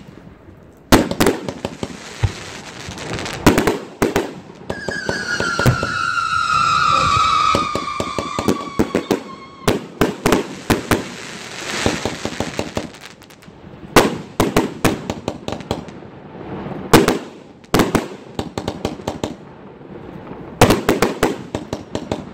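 A multi-shot firework cake firing: a rapid, irregular run of launch thuds and bursting reports. From about four and a half seconds in, one shot gives a long whistle that falls slowly in pitch for about five seconds.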